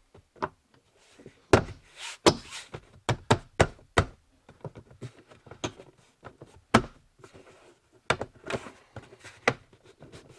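A plastic part being pushed and knocked into place by hand, hooked in by its tabs: a run of irregular sharp knocks, taps and clicks, loudest about one and a half seconds in and again near seven seconds.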